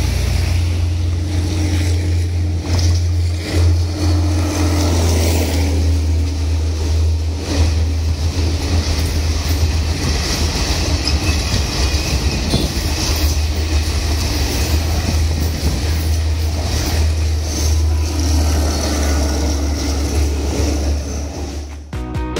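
Sri Lanka Railway Class S10 diesel multiple unit passing close by: a steady low drone from the power car, with the coach wheels clattering over rail joints. It falls away just before the end.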